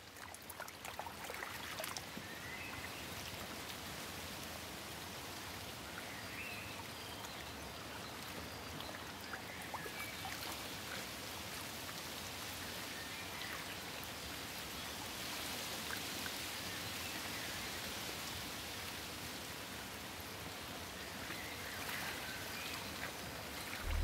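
Steady trickle and splash of water, fading in at the start, with a few short, high chirps scattered through.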